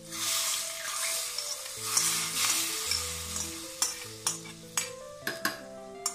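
Hot coconut-oil tempering of mustard seeds and browned shallots hitting the curry, a loud sizzle that sets in at once and dies down over a few seconds. A few sharp knocks near the end as it is stirred in.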